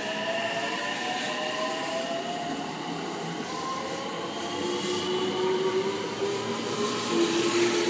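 JR West 225 series electric multiple unit pulling away along the platform: its inverter-driven traction motors give several whining tones that climb slowly in pitch as the train gathers speed, over the rumble of wheels on rail.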